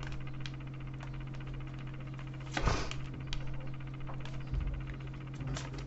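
Tarot cards being handled and laid out: scattered light clicks and taps, with one louder rustling handling sound about two and a half seconds in, over a steady low electrical hum.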